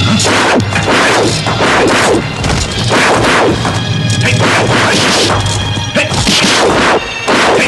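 Martial-arts film fight sound effects: a quick succession of punch and hit impacts, two or three a second, over background music.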